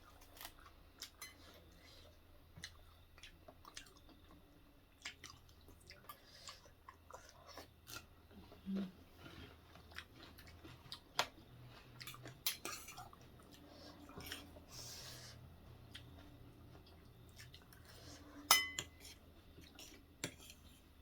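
Chewing at a meal, with scattered clicks and clinks of cutlery against plates and bowls; the sharpest clink rings out about eighteen seconds in.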